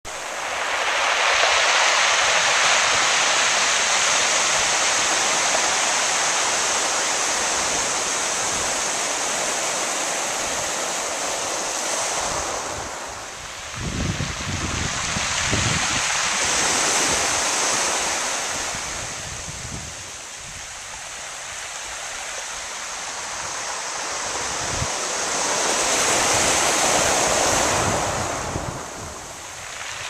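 Waves washing up a pebble beach, the surf rushing over the stones and drawing back through them. The rush swells and fades in about three long surges, strongest at the start, again a little after the middle, and near the end.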